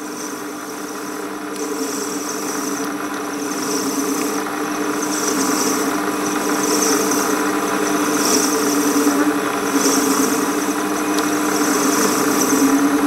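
Warco WM180 lathe running with a steady motor and drive hum while a radius cutter on the tool post cuts a ball on the end of the spinning workpiece. A cutting hiss swells and fades about every second and a half.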